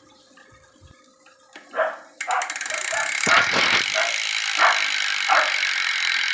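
A dog barking repeatedly, a short bark roughly every second. About two seconds in, a steady hiss starts suddenly beneath the barks.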